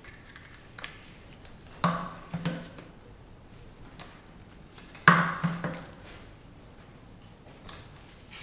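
Metallic clinks and knocks of a cordless drill and its bit working the head bolts on a compressor pump's finned cylinder head as the head is tightened down. The knocks come singly, the loudest two about two and five seconds in.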